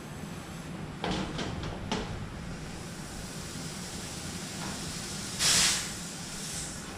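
Window-type air conditioner running with a steady hum while it is being charged with R-410A refrigerant. A few sharp clicks come about a second in, and a short loud hiss of escaping gas comes about five and a half seconds in.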